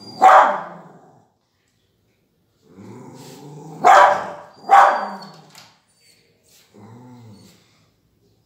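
Beagle barking: one loud bark at the start, then a low growl running into two more barks close together about four seconds in, and a softer low growl near the end.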